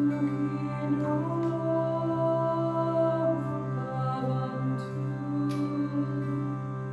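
A woman's voice chanting a slow, gliding mantra melody over a steady harmonium drone.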